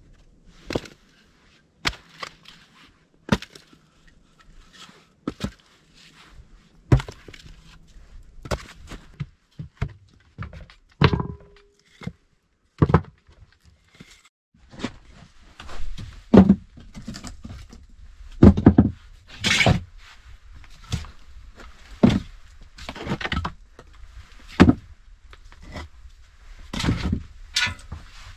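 Snow-covered firewood logs being carried in and set down on wooden boards: a long series of irregular wooden knocks and thunks, some of them loud, mixed with footsteps.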